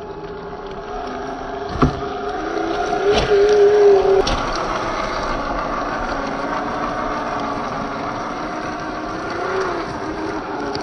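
The Traxxas TRX-4 RC crawler's electric motor and gearbox whine as it drives. The pitch wavers and swells to its loudest about three to four seconds in, with a few sharp knocks from the truck striking the ground.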